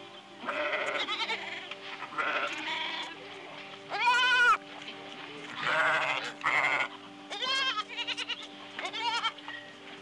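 A goat bleating over and over, about eight wavering calls, the loudest about four seconds in. Soft background music with held notes plays underneath.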